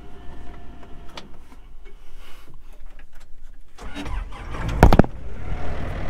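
Kubota compact track loader's diesel engine starting from cold. It cranks and catches about four seconds in, with a loud clatter as it fires, then settles into a steady low idle.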